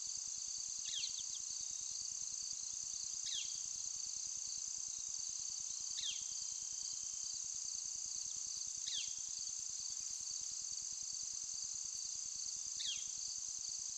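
Steady high-pitched insect chorus, like crickets, with a short falling chirp about every three seconds.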